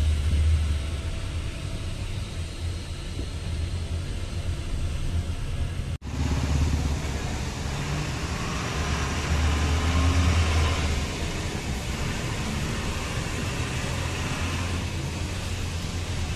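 Steady road noise inside a moving Hyundai Creta's cabin at highway speed: a low rumble of engine and tyres under an even hiss. It cuts out for an instant about six seconds in.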